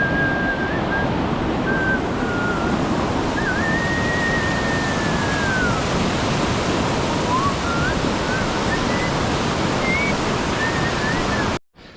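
Steady, loud rushing water, with thin wavering whistled tones above it; it cuts off suddenly just before the end.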